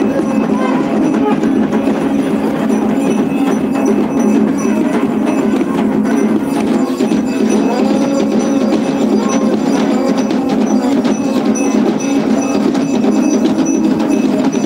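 Loud traditional Himachali temple-band music: drums beaten in a fast, unbroken rhythm with ringing metal percussion over them.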